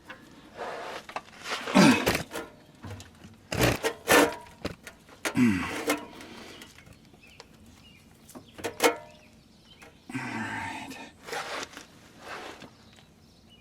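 Differential spider gears being worked into the carrier by hand: irregular metal clicks, clunks and scraping as the gears are shifted to mesh and time with the side gears.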